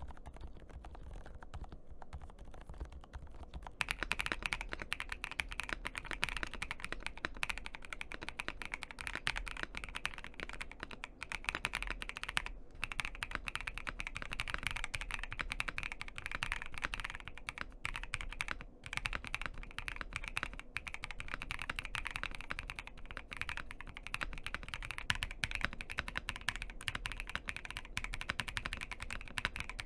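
Continuous fast typing on a mechanical keyboard, a rapid stream of keystrokes. About four seconds in the typing turns louder and brighter, as a different keyboard's sound test takes over.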